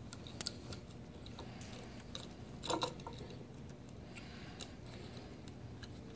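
Quiet handling noises as a rubber toothed drive belt is worked onto the pulleys of a mini lathe headstock: scattered light clicks and rubs, with a slightly louder clatter about three seconds in.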